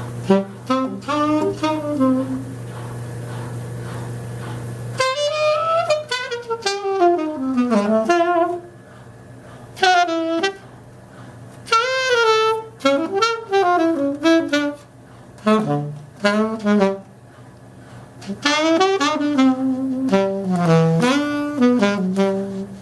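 Saxophone playing short bluesy phrases with pitch bends and slides, separated by brief pauses. A steady low hum sounds underneath for the first five seconds and then stops.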